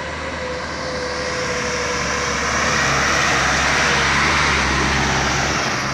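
Sugarcane-laden truck's engine pulling at full throttle as the truck comes round the bend and passes close by. It grows louder to a peak about three to four seconds in, then eases off.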